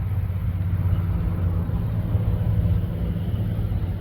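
Steady low mechanical hum, like an engine or motor running nearby, holding an even pitch throughout.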